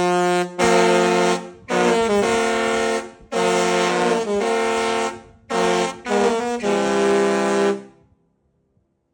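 The Disney Wish cruise ship's musical horn playing a tune: a series of long, brassy blasts that shift from note to note, with short breaks between phrases. It stops about a second before the end.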